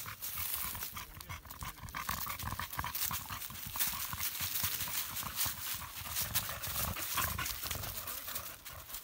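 Dog panting with its mouth open, in quick rhythmic breaths, while dry leaves rustle and crunch underfoot.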